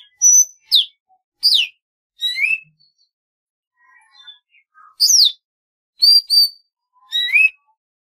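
Golden-fronted leafbird singing: a string of clear, whistled notes, mostly quick downward slurs with a few rising ones. There is a short gap of faint chips about three seconds in, and a quick pair of flat notes near the end.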